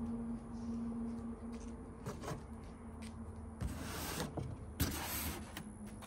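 Styrofoam packing and cardboard scraping and rustling as a boxed trolling motor is handled, with two louder scrapes about four and five seconds in.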